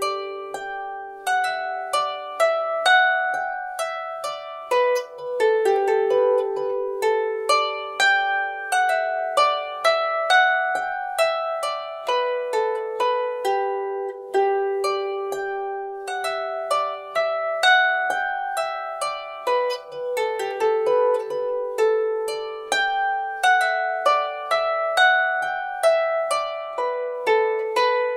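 Background music: a light melody of quick plucked-string notes, each note struck sharply and fading away.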